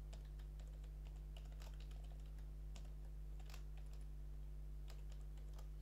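Computer keyboard typing, faint and irregular, as a password is keyed in at a terminal prompt. A steady low electrical hum runs underneath.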